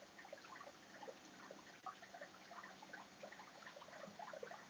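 Near silence: faint room tone with a low steady hum and scattered, irregular faint ticks.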